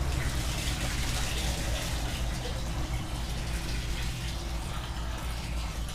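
Water running and splashing from a running pump setup over a steady low electric hum; the splashing is strongest in the first couple of seconds, then eases.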